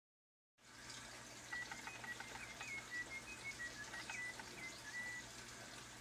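Helvetic singing bird cage automaton whistling its birdsong: short chirping notes that step up and down in pitch, starting about a second and a half in and stopping a little after five seconds, with a few clicks over a steady hiss.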